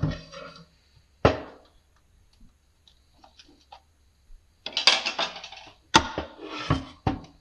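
Metal tools and steel transfer-case parts clinking and knocking as the case internals are worked on: a single sharp knock about a second in, a quiet spell, then a short run of clattering and scraping followed by several sharp clicks near the end.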